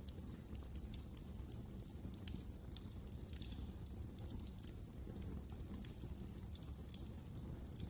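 Wood fire burning in a fireplace, crackling: an irregular, steady run of small sharp pops and snaps over a low rumble of the flames.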